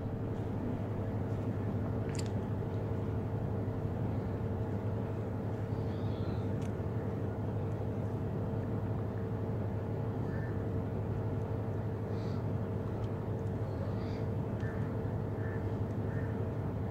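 Fishing boat's engine idling, a steady low hum.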